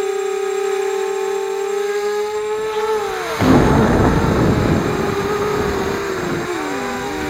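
FPV quadcopter's electric motors and propellers whining steadily. The pitch sags as throttle comes off about three seconds in, then a loud rushing noise takes over for a few seconds. Near the end the whine dips and climbs back up.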